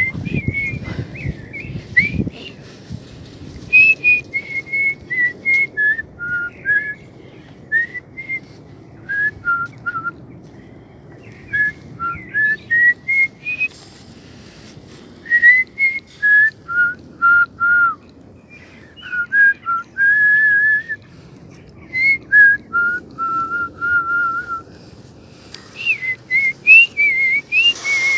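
A woman whistling a tune through pursed lips: short notes stepping up and down in pitch, with a few longer held notes, in phrases separated by brief pauses.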